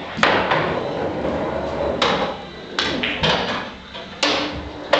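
Pool balls clacking: a cue strike, balls knocking together and against the cushions and pockets of a pool table, about six sharp knocks a second or so apart, each dying away quickly.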